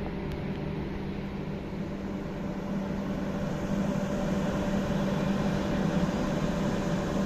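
HŽ series 1141 electric locomotive standing with its equipment running: a steady electric hum with a low tone, getting slightly louder about halfway through.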